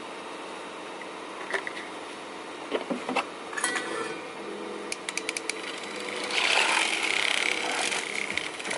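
Drink-making sounds at a café counter: scattered knocks and clicks, a quick run of sharp clicks about five seconds in, then a small electric machine starts running loudly about six seconds in.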